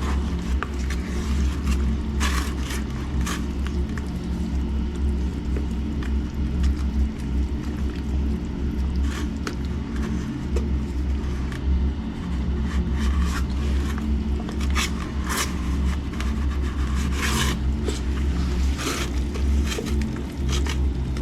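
Penetron waterproofing slurry being stirred in a container, with short scraping strokes of the mixing tool at irregular intervals. A steady low machine hum runs under it.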